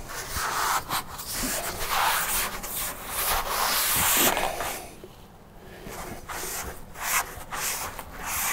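Hands rubbing and pressing a Mega Zorbe melamine foam panel up against the RV's cab-over ceiling: a dry brushing and rubbing sound coming in strokes, with a quieter spell a little past halfway.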